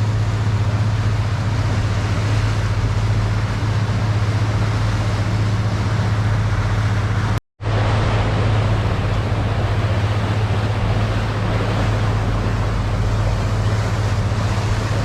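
Rabelo boat's engine running at a steady drone, with the rush of water and wind over it. The sound drops out for an instant about halfway through.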